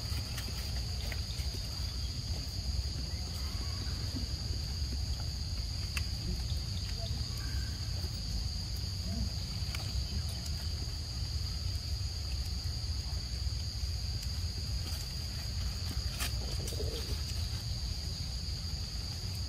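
Steady, unbroken high-pitched drone of insects over a low rumble, with a few faint clicks.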